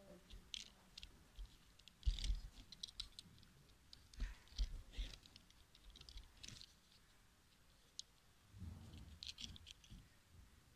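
Faint scattered clicks and dull handling thumps from a small die-cast toy car being turned over in the fingers and set down on a cloth-covered table.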